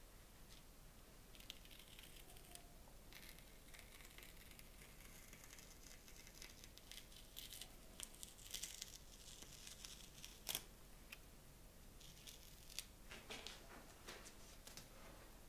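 A small piece of tape being peeled slowly off a paper print: faint crackling and tearing, with one sharper click about two-thirds of the way through.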